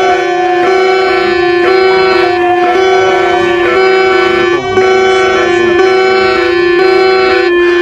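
Emergency alert tone: a loud, steady low note held under a repeating pattern of higher notes that step about twice a second.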